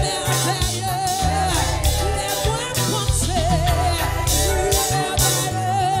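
Live gospel music: a woman singing held notes with vibrato over a band with a steady bass line and regular cymbal strikes.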